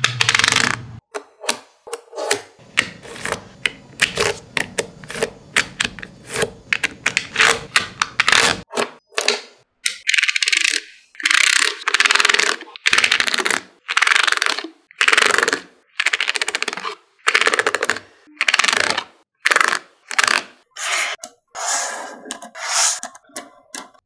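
Small magnetic metal balls clicking and clattering as they snap together and are pushed and slid along with a plastic card: a fast, uneven run of sharp clicks and short rattles.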